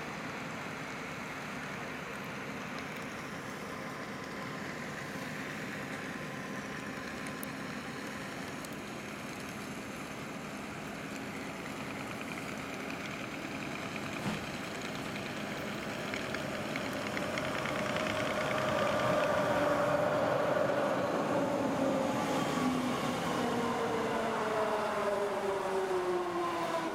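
Rhaetian Railway electric train running, first a steady distant rumble, then louder as an ABe 4/4 III electric railcar passes close by on the adjacent track. From about two-thirds of the way in, its traction motors whine in several tones that fall slowly and steadily in pitch.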